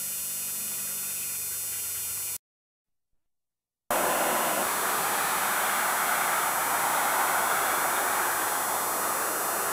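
Steady tape hiss with a faint hum for about two seconds, a brief gap of silence, then a louder steady rushing noise of interstate highway traffic.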